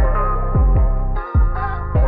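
Background music: deep bass hits that slide down in pitch, under held chord tones.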